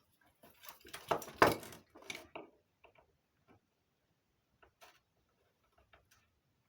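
Clicks and scraping of small parts being worked apart by hand as the battery pack's circuit board is freed from its spring-clip holder. A dense run of handling noise fills the first two and a half seconds, loudest about a second and a half in, followed by a few faint separate clicks.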